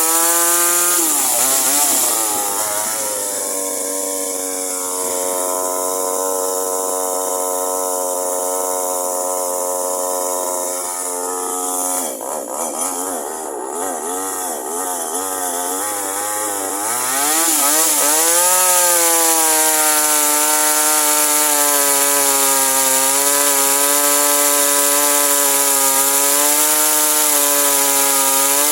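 Toyama TCS25X G2 25.4 cc two-stroke chainsaw running at high revs while cutting wood. Its pitch sags about a second in under the load of the cut and wavers unsteadily past the middle, then climbs back and holds steady for the last third.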